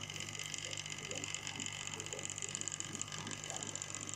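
OO gauge Hornby B12 model locomotive running slowly round the track: its small electric motor and gears whir steadily with a fine, rapid flutter. It now runs smoothly without smoking, its commutator freshly cleaned of carbon.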